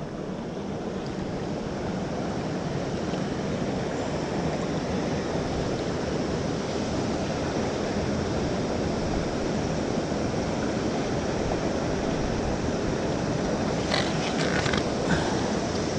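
Steady rush of a large river's current flowing past, with a few short sharp splashes or clicks near the end.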